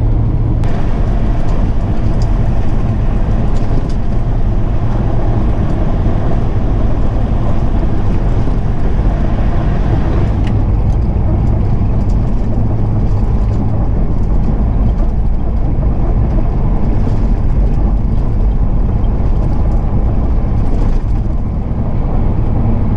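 Semi-truck engine droning steadily with tyre and road noise, heard from inside the cab while cruising on the highway. About ten seconds in, the higher rushing part of the noise drops away.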